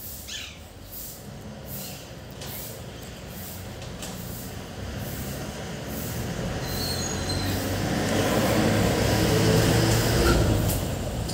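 A rumbling noise that builds over several seconds, loudest a little before the end and then easing, with a brief high squeal about half a second in.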